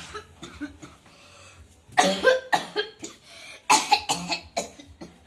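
A person coughing in an exaggerated, put-on way: a burst of several coughs about two seconds in, then another burst about a second and a half later.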